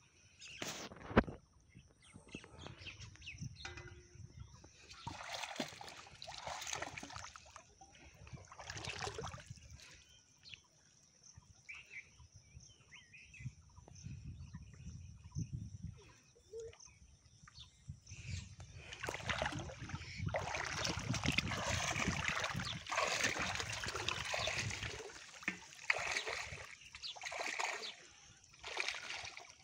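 Water splashing and sloshing as someone wades through a shallow, weedy pond, in irregular swishes that are heaviest in the second half. There is a single sharp knock about a second in.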